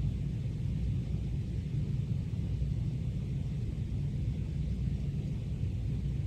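Room tone: a steady low rumble with a faint hiss, and no distinct events.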